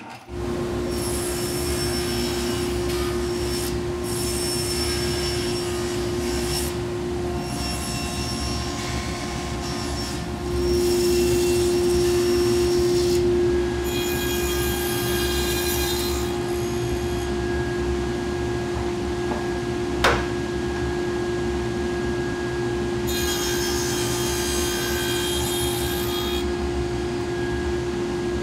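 Table saw running steadily while a wooden rail is pushed through it in about six passes to cut tenons, each pass adding a few seconds of cutting hiss. The longest and loudest pass comes about ten seconds in, and a single sharp click comes about twenty seconds in.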